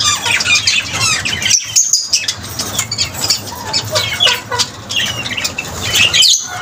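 Lovebirds chattering: a rapid, continuous run of short, high, squeaky chirps and squawks.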